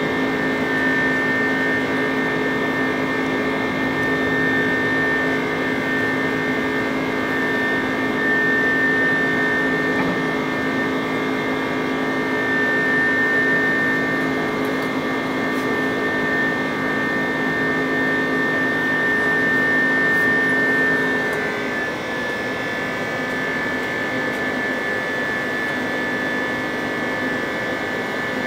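Airbus A330 jet engine and airflow heard from a window seat beside the wing during climb-out: a steady rush with a high whine and a lower hum. About 21 seconds in, the lower hum drops away and the sound eases slightly.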